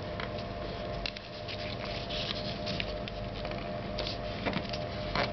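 Origami paper handled and folded by hand: soft rustling with scattered short crinkles and scrapes as corners are brought in and creased, over a faint steady hum.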